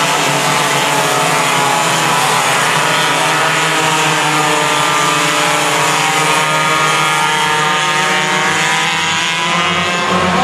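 Several racing kart engines buzzing at once on a circuit, their pitches rising and falling as the karts accelerate and slow through the corners.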